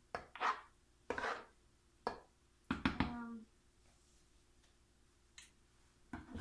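A spoon scraping and tapping through thick hot process soap batter in a soap mold: a few short scrapes and light clicks over the first three and a half seconds, then quiet.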